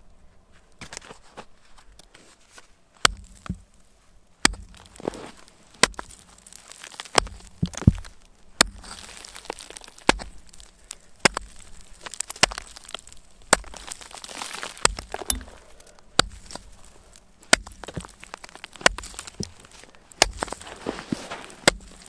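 Hatchet chopping into lake ice: a series of sharp, loud blows, roughly one every second or so, beginning about three seconds in.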